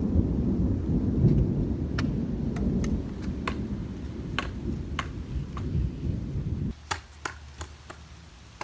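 Low rumble of thunder, cutting off abruptly near the end, with scattered sharp clicks.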